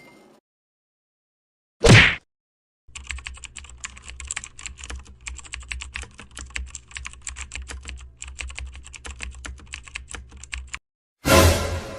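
Typing on a keyboard: rapid, irregular key clicks for about eight seconds over a low hum. A short loud burst comes about two seconds in, and another near the end.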